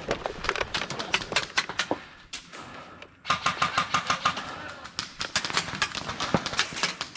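Airsoft guns firing in rapid strings, a fast run of sharp clicks many per second. There is a short lull about two seconds in before the firing picks up again.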